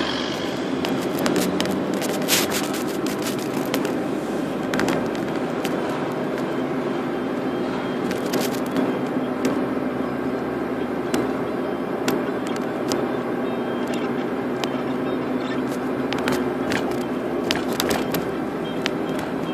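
Car driving, heard from inside the cabin: a steady engine and tyre hum with frequent short clicks and rattles scattered through it.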